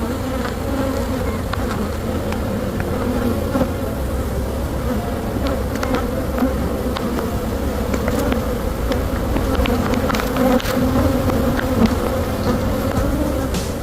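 Many honey bees buzzing around an opened hive: a dense, steady hum, with a few faint clicks scattered through it.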